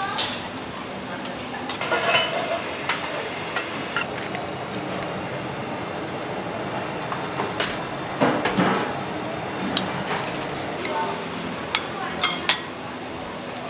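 A metal ladle scooping broth from a large metal pan of stew, clinking and knocking now and then against the pan and ceramic bowls, over background voices.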